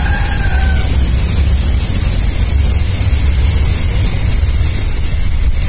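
Steady low rumble of wind buffeting the microphone, under a constant high-pitched hiss; a faint short tone sounds in the first second.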